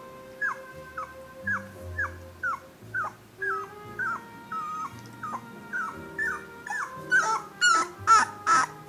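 A 17-day-old Nova Scotia Duck Tolling Retriever puppy whimpering in short, falling squeaks about twice a second, turning louder and harsher near the end. Soft background music runs beneath.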